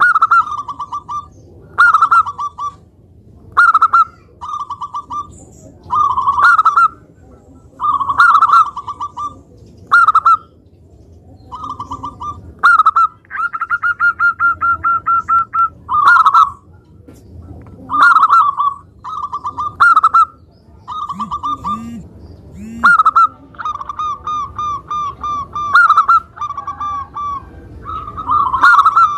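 Zebra dove (perkutut) cooing: loud phrases of quick, stuttering coo notes, repeated every second or two, with a few longer drawn-out trills.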